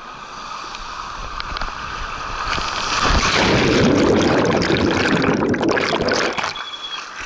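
Rider's splashdown at the end of an open drop water slide. Rushing water and air hiss first, then about three seconds in a plunge into the pool gives way to loud underwater churning and bubbling, which stops about six seconds in.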